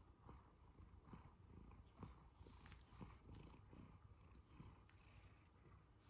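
Siberian Forest cat purring steadily and quietly while being stroked.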